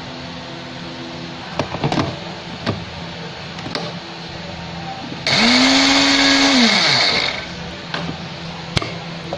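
Philips blender motor with its small grinding jar running in one short pulse of about two seconds, grinding rice into flour. It spins up at once to a steady whine, then winds down with falling pitch.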